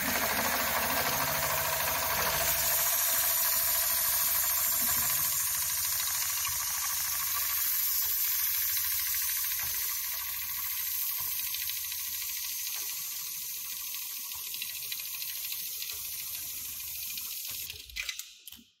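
HighTex ASM911 heavy-duty programmable pattern sewing machine running a sewing cycle through heavy webbing, rapid stitching under a steady hiss of air from its needle cooler. It winds down and stops near the end.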